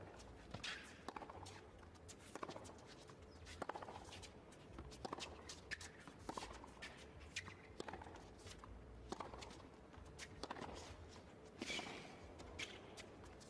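Tennis balls struck back and forth by rackets in a long baseline rally on a hard court: a sharp pock a little over a second apart, with footwork on the court between hits.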